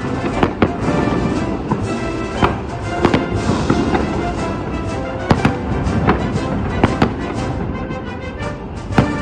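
Aerial fireworks going off in a string of sharp, irregularly spaced bangs, over music with long held tones.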